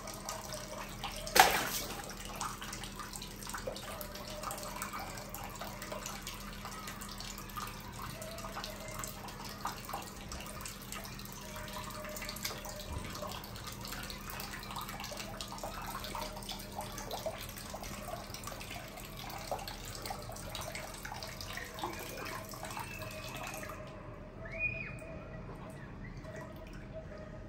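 Water running and splashing in a tub or basin, with many small splashes and drips, a single loud sharp splash about a second and a half in, and a short high squeak near the end.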